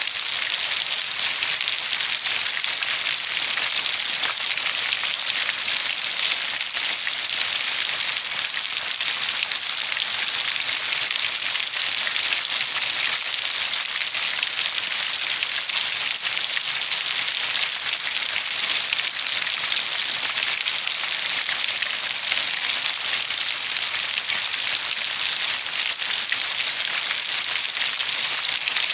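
Steady rain falling: an even hiss thick with many small drop ticks, unchanging throughout, with no thunder.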